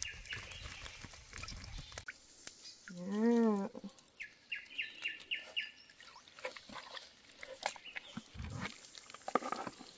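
Water dripping and splashing as a mesh fish trap full of small live fish is lifted from a creek and handled, with scattered small ticks and splashes. About three seconds in there is a short call that rises and falls in pitch, and just after it a quick run of about six high chirps.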